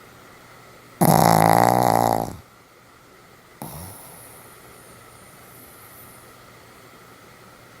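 Pomeranian snoring in deep sleep: one loud, drawn-out snore about a second in, lasting about a second and a half, then a much fainter breath sound a little later.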